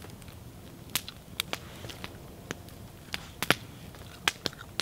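Knife cutting cooked meat off a roasted deer leg bone on a wooden board, with irregular sharp clicks and ticks.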